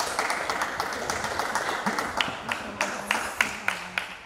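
A small crowd of spectators applauding, dense at first, then thinning to single sharp claps.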